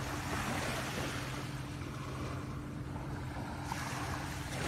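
Small waves washing onto a sandy shore, with wind on the microphone and a steady low hum underneath; the rush grows louder near the end.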